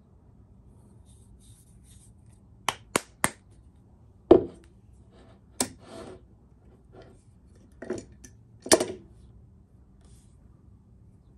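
A glass swing-top jar with a metal wire clasp being opened and handled: a quick run of three sharp clicks, a louder knock, then scattered clicks and taps of the jar and lid.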